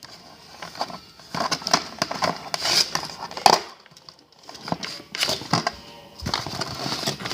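Plastic and cardboard packaging being handled and crinkled, with irregular crackles, clicks and small knocks as wire twist-ties are worked loose, and a brief lull a little before the middle.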